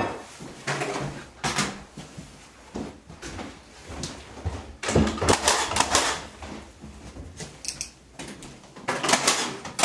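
Irregular light knocks, taps and rattles of hands-on work at a window frame while wooden trim is being fitted, with louder clusters about a second and a half in, around the middle, and near the end.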